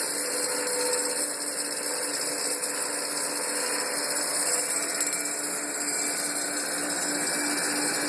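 Homemade CNC wood lathe running steadily, with a held hum that pulses slightly and a high hiss throughout.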